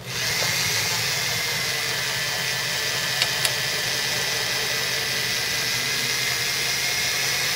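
Electric drill running at a steady speed with a whine, turning a scissor jack's screw to press a small tire's sidewall down and break its bead off the rim. It starts just after the beginning and stops suddenly at the end.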